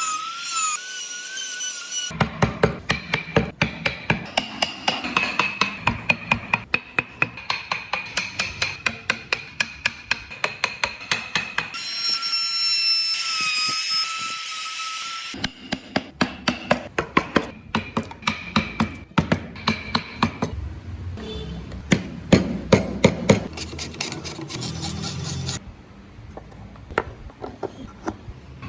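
Chisel driven into wood by steady mallet blows, several a second, in long runs. Around the middle the knocking stops for a few seconds of steady whining tones, and the blows get sharper and louder for a short run near the end.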